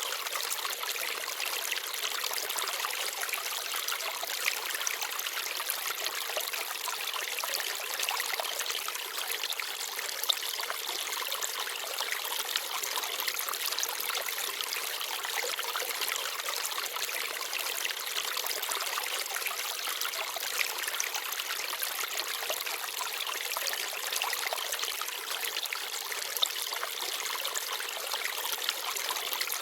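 Small forest stream babbling and trickling steadily over stones, with a light, hissy sound and no deep rumble, and a few brief louder ticks now and then.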